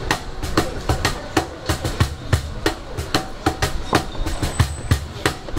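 Cajón struck in a steady beat of about three strokes a second, with guitars strumming along underneath and no singing.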